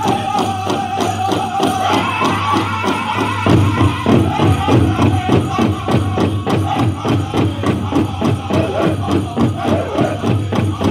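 Powwow drum group singing a chicken dance song, high voices over a large shared drum struck in a fast, even beat, with the dancers' bells jingling. The drumming and singing grow heavier about three and a half seconds in.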